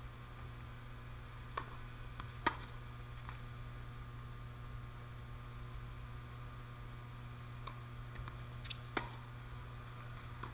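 Steady low electrical hum, with a handful of short sharp pops of a tennis ball bounced on the hard court and struck by a racket, the loudest a few seconds in and another near the end.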